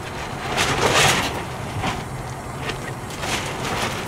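Water running and splashing through a GOLDROP elutriation gold separator as its pump drives flow through the trap, with a steady low rumble underneath and louder splashing surges about a second in and again past three seconds.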